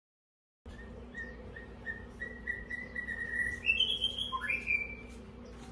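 A bird singing: a run of short, clear whistled notes, several a second, creeping up in pitch, then a higher held note and a quick upward swoop. A steady low hum lies underneath.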